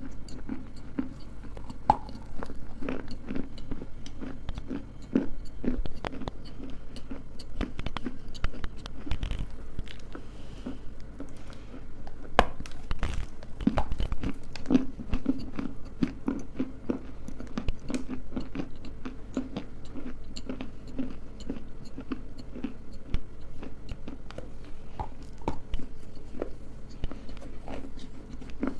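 Close-miked biting and chewing of hard, brittle food, with many sharp cracks over a steady low chewing sound.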